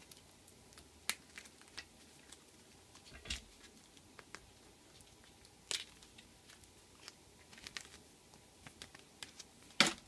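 Paper-backed rhinestone sticker sheet being handled and peeled apart by hand: scattered crinkles, rustles and small taps, with the loudest crackle near the end.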